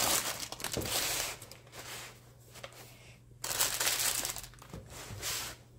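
Baking paper crinkling and rustling in a few bursts as hands roll a hot sponge cake up in it and twist the paper ends closed.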